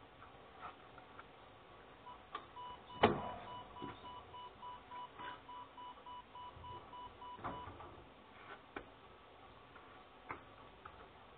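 Electronic door-lock beeper at an apartment-building entrance sounding in rapid short beeps for about five seconds. A heavy door clunk comes about three seconds in, and another knock comes as the beeping stops.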